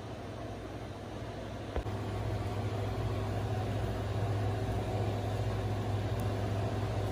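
A steady low mechanical hum, with a single click about two seconds in, after which the hum is louder.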